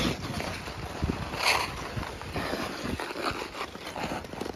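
Ice-skate blades scraping and hissing on rink ice as two skaters shuffle along, with a sharper scrape about one and a half seconds in, over a low rumble.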